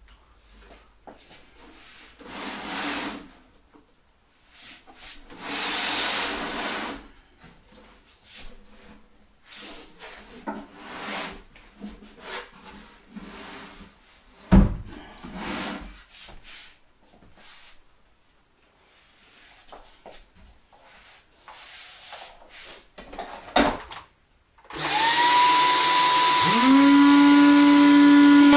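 Knocks, scrapes and slides of wooden furniture panels being moved and handled. About 25 seconds in, an electric sander with its dust-extraction vacuum starts up, its pitch rising as it spins up, then runs steadily.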